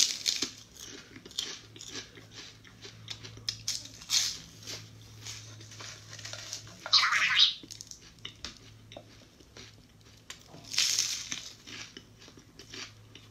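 Crisp sandwich seaweed (nori) sheets crunching as they are bitten and chewed, a run of short crackling crunches, with two louder rustles about seven and eleven seconds in.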